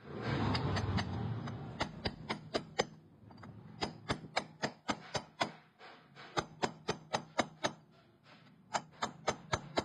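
Light, sharp taps in quick runs of four to eight, about three to four a second, with short pauses between the runs: hand work tapping on the valve seat area of a cylinder head.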